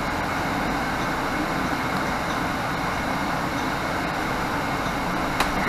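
Cabin noise of a 2018 Nova Bus LFS diesel transit bus under way: steady engine and road noise from inside the bus, with a single sharp click near the end.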